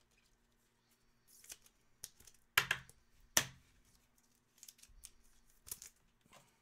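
Trading cards being handled: a scatter of short scrapes and clicks, with two sharper snaps near the middle.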